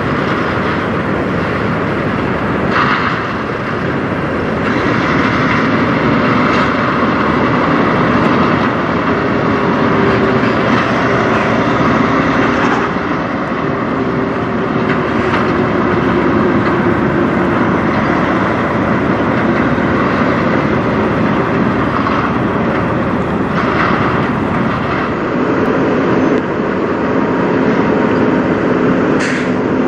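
Diesel semi-truck engines running: a Peterbilt car-hauler tractor moving slowly at low revs over a steady wash of other truck engines, with a few brief sharp noises.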